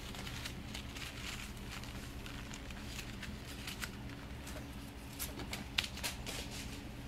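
Scattered rustling, crinkling and light clicks as a cat bats and grabs at a small crumpled toy held in a hand, over a steady low hum.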